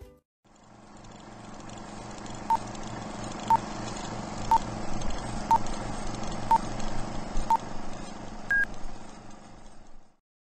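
Film-leader countdown sound effect: a steady film-projector noise with a short beep every second, six in all, then one higher beep near the end before it cuts off suddenly.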